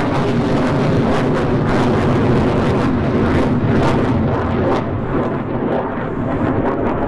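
F-15 Eagle fighter's twin turbofan jet engines, a loud steady jet noise with crackle as it flies past overhead, easing slightly about five seconds in.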